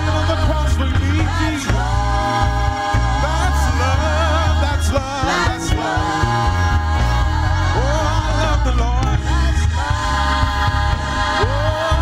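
Gospel music with singing: voices holding long notes with vibrato over a steady, heavy bass.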